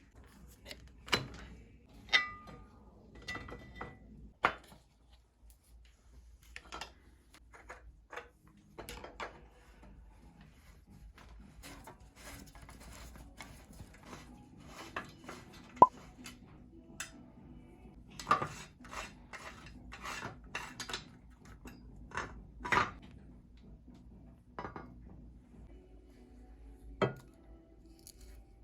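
Irregular metallic clicks, clinks and taps of tools and bicycle headset parts being handled, a few ringing briefly.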